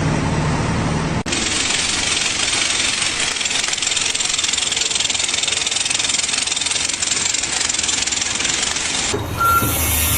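Machine noise: a low engine hum at first, then about a second in an abrupt change to a steady, loud, hiss-like mechanical noise that cuts off suddenly near the end.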